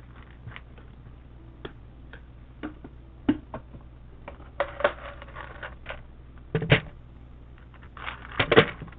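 Scattered small plastic clicks and clacks of mechanical keyboard parts being handled, with a few louder clacks about five, six and a half and eight and a half seconds in.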